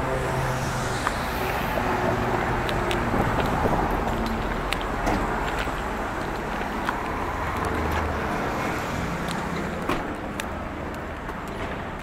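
Road traffic on a city street: cars running past, a steady mix of engine hum and tyre noise that eases off slowly toward the end, with scattered small clicks.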